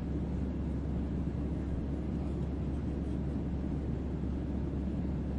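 Airplane ambience: a steady, unchanging low rumble and drone, heaviest in the bass.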